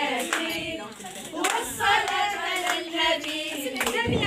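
A group of voices singing a religious nasheed together, with hand claps sounding every so often through the song.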